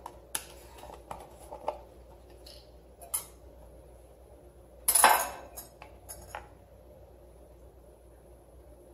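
Scattered clicks and clinks of kitchen things handled on a counter: a wire whisk against a glass mixing bowl and a plastic almond-milk carton. The loudest clatter comes about five seconds in, with a few lighter clicks just after.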